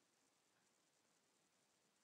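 Near silence: faint steady hiss of room tone.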